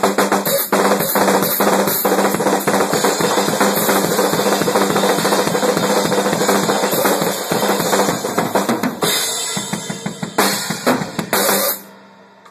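Drum kit solo: fast, dense strokes on snare, bass drum and cymbals, including a roll, giving way to a few separate heavy hits before the playing stops near the end.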